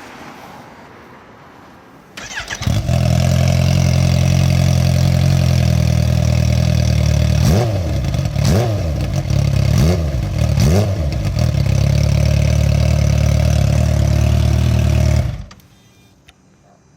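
Kawasaki Ninja H2's supercharged inline-four run with the silencer removed, so the bare exhaust is very loud. The starter whirs, the engine catches a couple of seconds in and idles, is revved four times in quick succession around the middle, idles again and is switched off a second or two before the end.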